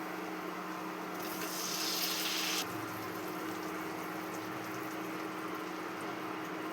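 Kitchen sounds over a steady hum: a brief rush of running or poured liquid that starts about a second in and cuts off suddenly, then an even low hiss.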